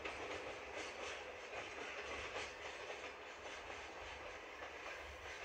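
Container freight train rolling away into the distance: a faint steady rumble of wheels on rail with light, irregular clicks over rail joints.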